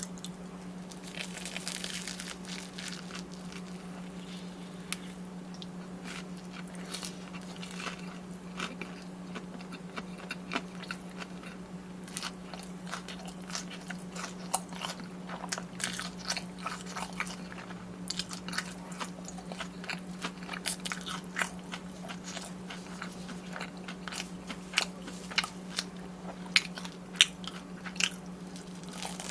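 Close-miked biting, crunching and chewing of fried, battered Korean snacks, with irregular crisp cracks that come thicker and louder near the end, over a steady low hum.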